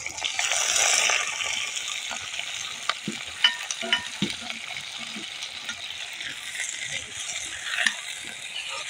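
Marinated chicken pieces dropped into hot mustard oil in a karahi, sizzling loudest as they land and then frying steadily. A steel ladle clinks and scrapes against the pan a few times.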